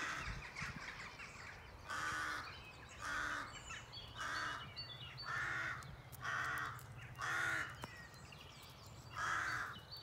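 Crows circling overhead, cawing over and over: seven caws at about one a second, beginning about two seconds in, with a short pause before the last.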